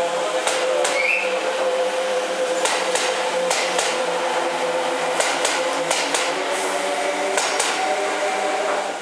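Kintetsu 22000-series limited express electric train running past along the platform, its wheels knocking sharply and irregularly over the rail joints above a steady hum.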